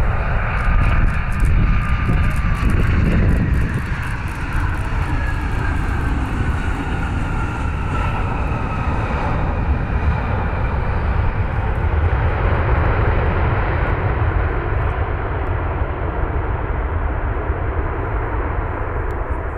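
United Boeing 737 jet airliner landing and rolling out on the runway: a steady jet engine roar with a whine that falls in pitch partway through.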